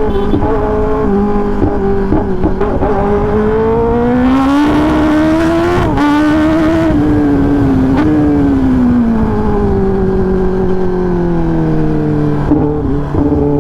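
Kawasaki Ninja ZX-10R's inline-four engine through an SC-Project full titanium exhaust, very loud: the note climbs as the bike accelerates, with two brief dips in pitch from quick upshifts midway. It then falls steadily as the throttle is rolled off, with wind rush rising while at speed.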